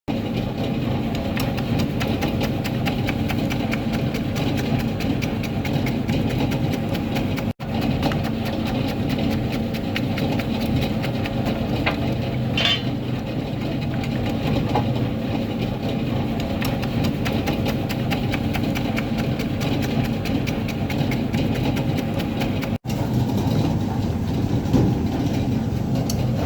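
Coconut chip slicing machine running steadily, a motor hum with fast, fine ticking over it and a brief higher-pitched sound about halfway through.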